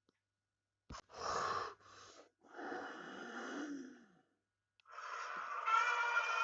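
Animal sound effects: a click, then short breathy snorts and a longer wheezing breath with a falling pitch. Near the end a sustained call with several steady tones begins.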